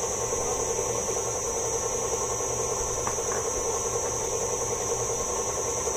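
KitchenAid Artisan stand mixer running at a steady speed, its motor giving a constant hum.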